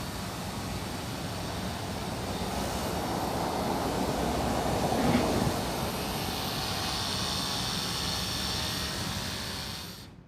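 Ryobi portable pressure washer running: a steady motor hum under the hiss of the spray, swelling briefly around the middle and fading out near the end.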